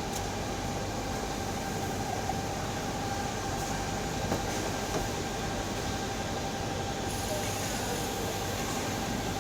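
Steady rumbling noise with a constant mid-pitched hum and a few faint clicks.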